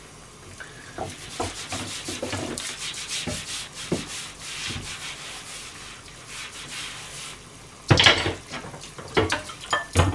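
Sponge scrubbing a wooden board at a kitchen sink: a run of rubbing strokes, then a sudden louder burst of noise near the end.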